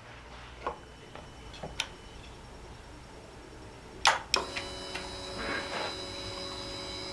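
A few light clicks, then a sharp click about four seconds in as the Yamaha MT-09's ignition key is switched back on. A steady hum with a thin high whine follows for about three seconds and ends with a click: the motorcycle powering up, its fuel pump priming.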